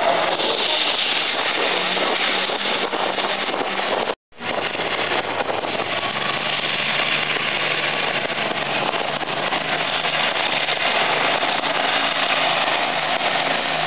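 Modified pulling tractors' engines running flat out under load while pulling the sled. The sound cuts off for a moment about four seconds in, then another tractor's engine runs steadily with a deeper pitched note.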